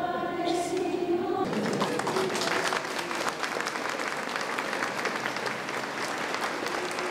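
A sung note that has been held ends about a second and a half in. The congregation then breaks into sustained applause, many hands clapping together.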